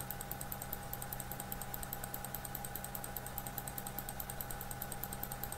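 Steady low electrical hum of the recording background, with a faint high ticking that repeats evenly several times a second. No sound from the explosion footage is heard.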